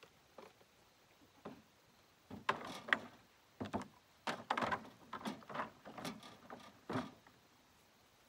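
A run of irregular knocks and clattering, about a dozen hits over some five seconds, starting about two seconds in, with a couple of fainter knocks before.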